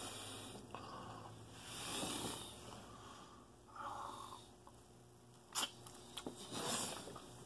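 A man breathing noisily through his nose in several soft hissy breaths while eating segments of blood orange, with one short click about two-thirds of the way through.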